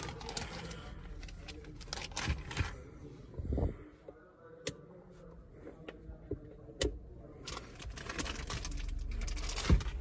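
Handling sounds inside a car cabin: scattered sharp clicks and short rustles as the interior roof lamp and fittings are worked by hand, with two distinct single clicks in the middle.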